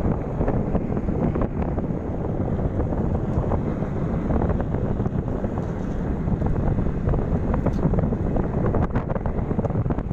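Steady wind buffeting the microphone of a phone carried on a moving electric bicycle, a dense low rumble with no engine sound.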